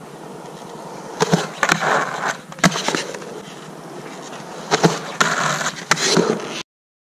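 Skateboard rolling on concrete: a rough wheel whir that swells and fades in several surges, with sharp clacks of the board among them. The sound cuts off abruptly near the end.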